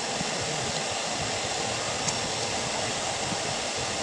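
Blacksmith's forge running, a steady, even rush of air and fire with no breaks.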